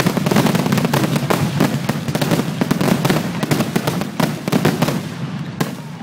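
Aerial fireworks in a rapid barrage: many shell bursts and crackles overlap into one continuous volley, which thins out and gets quieter in the last second.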